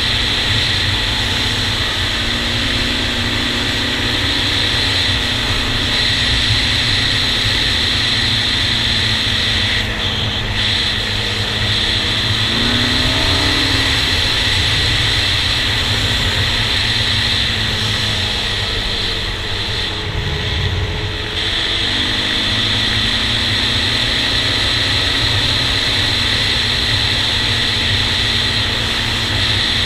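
Honda TRX400EX quad's single-cylinder four-stroke engine running steadily under way. Its pitch dips and climbs again twice near the middle as the throttle is eased off and reapplied, heard from a helmet-mounted camera.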